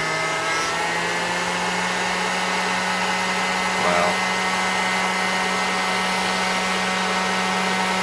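Electric s'mores maker's fan and heater running, a steady hair-dryer-like whirring hum. The hum rises slightly in pitch within the first second.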